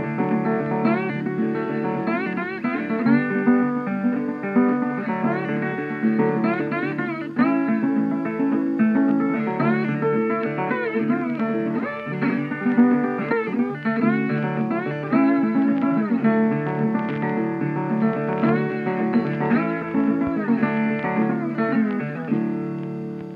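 Background music with plucked guitar playing a run of notes, some of them bending in pitch; it fades out near the end.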